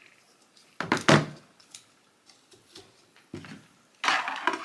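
Knocks and clatter from handling a phone tripod while mounting a phone and turning its rotating head: two sharp knocks about a second in, a softer knock past three seconds, and a scraping rattle near the end.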